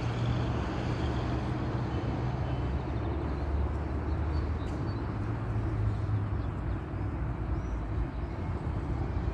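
Steady low outdoor rumble, typical of distant road traffic, with a few faint, short, high chirps.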